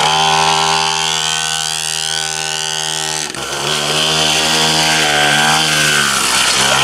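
Small two-stroke engine of a kids' mini dirt bike running loud at steady revs while it is ridden. The revs dip briefly about three seconds in, then hold steady again. The engine is cold and running on choke.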